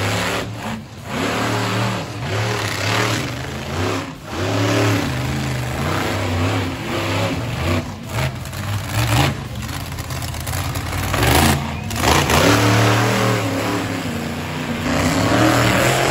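Monster truck engine revving hard again and again, its pitch rising and falling, with short lulls between revs.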